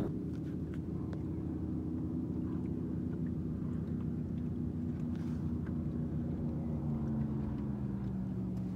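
A boat engine running steadily, its pitch dropping slightly near the end.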